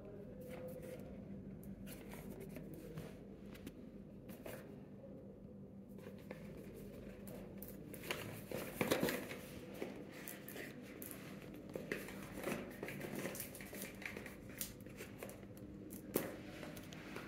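A small cardboard box being turned over and handled in the hands: scattered light rubs and taps against the box, busiest and loudest about nine seconds in, with a sharp tap about sixteen seconds in, over a steady low room hum.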